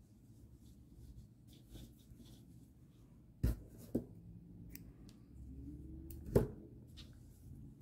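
Faint rustling of yarn as knots are tied off on a crocheted toy by hand, with two sharp clicks about three and a half seconds in and a louder click about six and a half seconds in.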